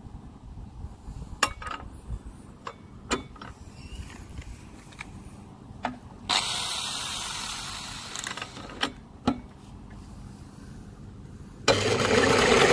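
Metal clicks and knocks as an electric drill is fitted onto the flywheel nut of an old Rover lawnmower engine, with a short burst of the drill spinning about six seconds in. Near the end the drill cranks the engine over: a loud, fast rhythmic churning.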